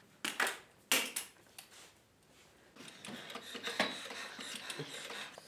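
A few sharp knocks in the first second, then, from about halfway in, the dial of an old red rotary telephone being turned and spinning back, making a fast run of clicks.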